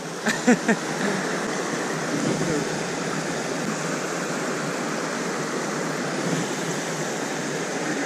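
Steady rush of a small mountain stream running over rocky riffles and little cascades.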